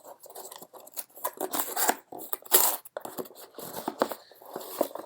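A package being opened by hand: irregular tearing, rustling and crinkling of packaging, with a sharper snap a little after halfway.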